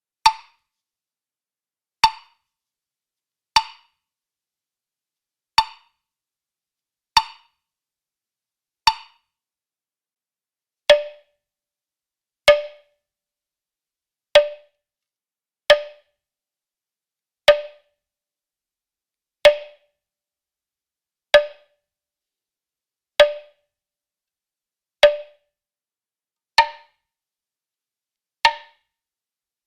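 Woodblock struck with single sharp hits, one every second and a half to two seconds, each dying away quickly. About a third of the way in, the hits change to a lower-pitched note.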